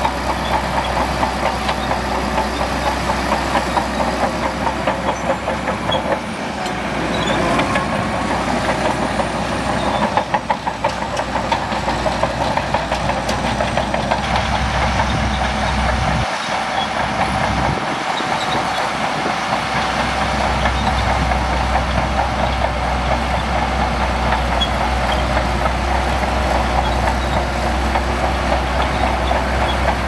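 Shantui DH17C2 bulldozer at work: its diesel engine running steadily under load, with a dense, rapid clanking from its steel tracks.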